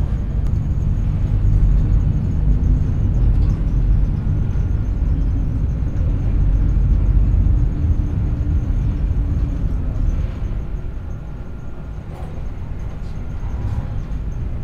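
Low, steady rumble of the Bucyrus-Erie 2570W electric dragline's machinery, heard inside the operator's cab as the bucket drags through the dirt. The rumble eases about ten seconds in.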